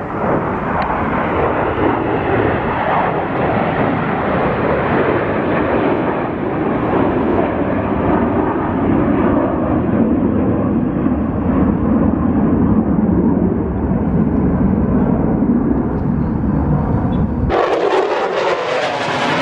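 Jet aircraft passing at an air show: a loud, steady jet noise whose pitch slowly sinks as it draws away. Near the end it breaks off abruptly into a thinner, hissier sound.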